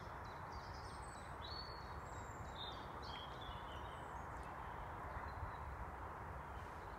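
Spring woodland birdsong: faint high-pitched chirps and short trills in the first few seconds, over a steady background hiss.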